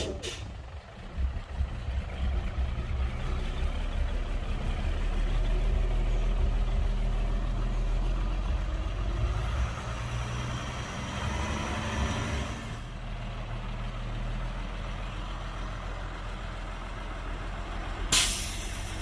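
A dump truck's diesel engine runs, working harder and louder through the middle of the stretch. Near the end there is a short, sharp hiss of air brakes.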